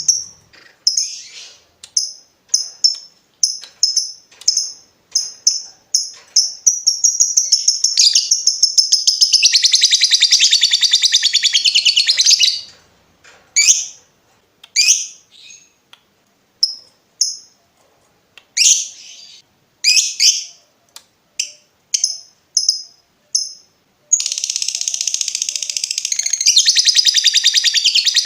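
Lovebird calling. First come sharp high chirps about two a second, the 'ngetik' typing call. Then a long, rapid, chattering trill, the 'ngekek', lasts about five seconds, followed by scattered chirps, and a second long trill starts near the end.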